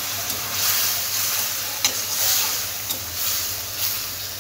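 Potato and eggplant pieces sizzling in oil and spice paste in a metal kadai while a metal spoon stirs and scrapes them, with a few sharp clinks of spoon on pan. This is the kosha stage: the spice paste is being fried down until the oil separates.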